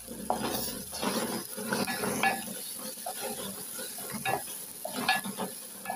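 A cooking spoon stirring and scraping tomatoes, onions and whole green chilies in a metal pot, in irregular strokes, with the oil frying and sizzling under them.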